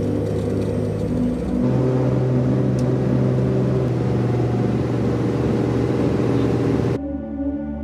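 Piston engine and propeller of a single-engine light aircraft at full power during the takeoff roll and lift-off, heard from inside the cabin. The engine note steps up about a second and a half in, and the sound cuts off suddenly near the end.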